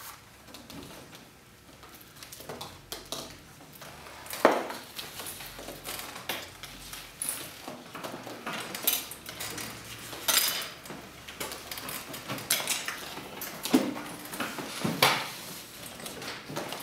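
Dishes knocking and clinking on a wooden table as plates, glasses and bread are handled and set down: scattered sharp knocks that grow busier in the second half, the loudest about four and a half seconds in.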